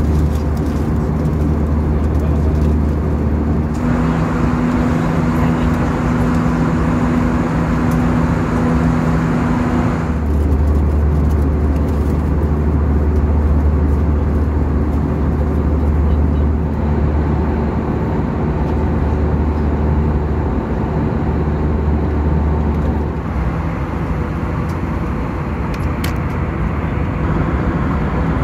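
Airbus A320 cabin noise in cruise: a steady jet-engine and airflow drone with a low hum. Its low tones change abruptly about 4, 10 and 23 seconds in.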